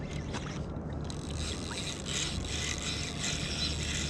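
Water sloshing and splashing against a kayak hull over a steady low rumble; a brighter, hissing wash of water comes in about a second in.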